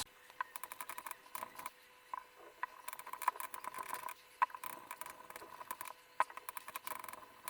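Faint, irregular ticks and crackles in quick runs as a blade cuts into a tightly wound spool of thin transfer-ribbon film, over a faint steady hum.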